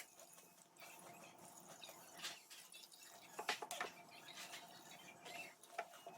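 Near silence in a small room, with a few faint scattered clicks and taps.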